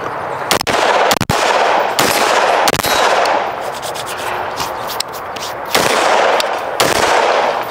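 Rifle shots from AR-15-style semi-automatic rifles, several single shots about a second apart with a longer pause in the middle, each ringing out after the crack.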